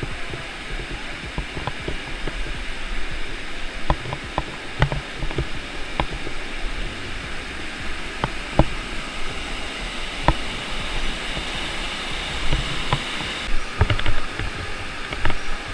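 Steady rush of flowing river water, with scattered light clicks and taps over it.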